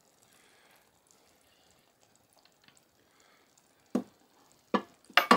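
A few seconds of very faint soft bubbling from the simmering pot of chili. Then, about four seconds in, a few sharp clacks as the glass pot lid is set down and utensils are handled.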